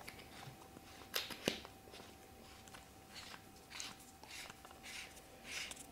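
Wolf-Eyes Raider flashlight having its threaded section screwed on over the batteries: two light clicks, then a series of faint, short scraping rasps from the threads as it is turned.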